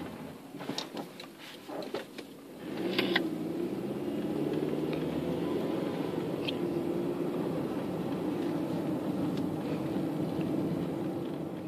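Proton Persona's CamPro S4PH four-cylinder engine, with a 4-2-1 exhaust manifold and the catalytic converter removed, heard from inside the cabin. A few light clicks and knocks over a quieter stretch, then from about three seconds in a steady low engine drone at low revs.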